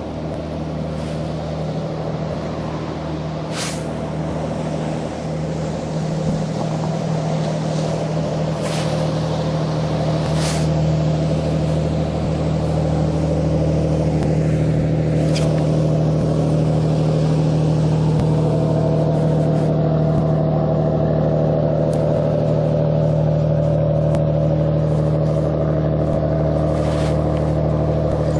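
Motorboat engine running at a steady speed as the boat passes close by, growing louder over the first half and then holding. A few short sharp clicks now and then.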